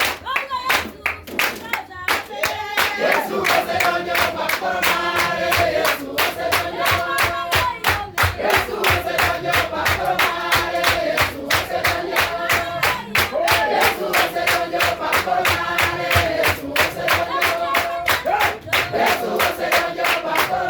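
Music: a choir singing a gospel song in Luo in several-part harmony, over a steady rhythmic beat of claps and percussion.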